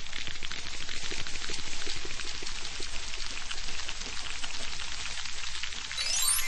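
A dense, even patter like rain falling, swelling at the start. Near the end a quick rising chime sweep cuts across it.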